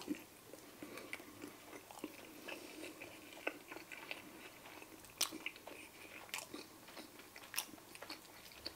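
A person chewing a bite of crispy-coated air-fried chicken drumstick: irregular crunches of the coating between softer chewing, the loudest about five seconds in and again near the end.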